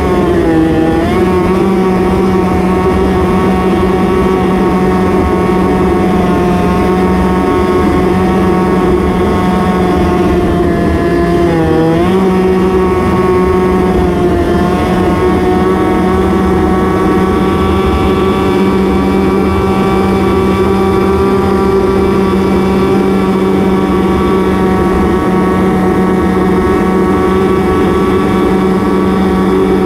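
Ski-Doo snowmobile engine running at high, steady revs, dipping briefly about a second in and again about twelve seconds in before picking back up.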